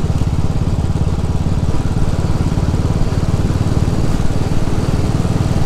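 Royal Enfield single-cylinder motorcycle engine running steadily at road speed, heard from on board the bike, with a fast, even exhaust beat.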